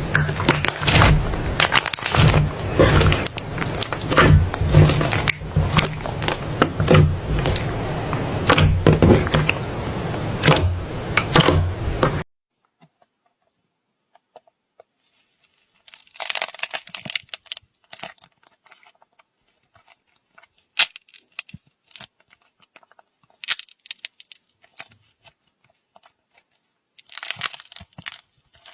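Soft slime being squished and stretched by hand, making crackling, popping sounds. They are dense and continuous over a low hum for about the first twelve seconds, then cut off suddenly to silence and come back as short, scattered bursts of crackles.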